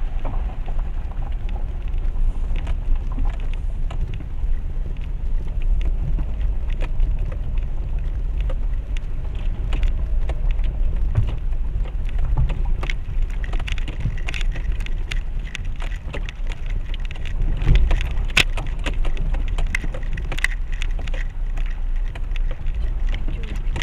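Renault Duster crawling over a rocky mountain dirt road: a steady low rumble from the car with frequent sharp knocks and rattles from stones under the tyres and the jolting body, coming thicker in the second half.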